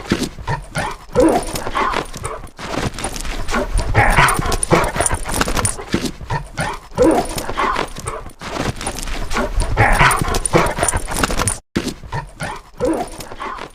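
Dogs barking and whining in a string of sound-effect clips, broken by short silent gaps.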